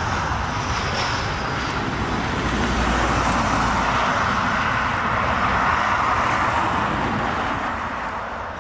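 Jet airliner engines running at high power: a steady, loud rush of jet noise that fades away near the end.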